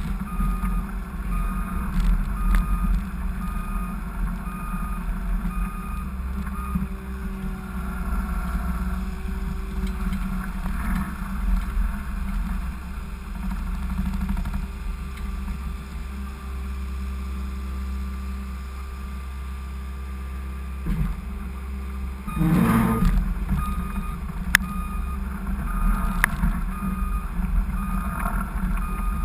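Skid steer engine running steadily under load, its backup alarm beeping in an even pulse for the first several seconds and again near the end. A short noisy clatter comes just before the alarm resumes.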